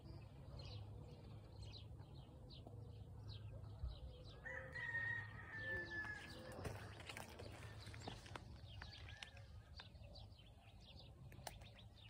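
Faint birdsong: short high chirps repeating a few times a second, with a longer, lower call held for about two seconds near the middle.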